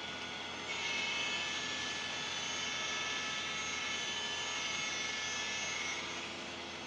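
Model freight cars rolling along the track: a steady rolling hiss of wheels on rail. About a second in it grows louder, with thin high ringing tones, and it eases off near the end.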